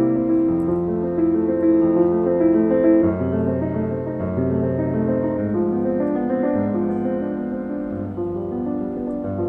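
Background music: slow piano chords.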